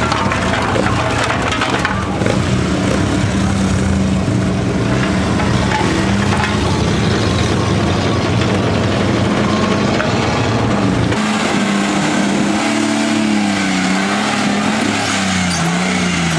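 Off-road vehicle engines. A steady engine drone is followed, after a sudden change about eleven seconds in, by a Jeep's engine revving up and down as it labours through deep mud.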